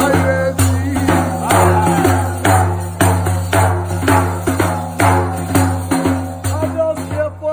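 Large frame drum beaten by hand in a steady rhythm, about two strokes a second with a stronger stroke once a second, under music with a steady low note. A voice sings a melody over it near the start and again near the end.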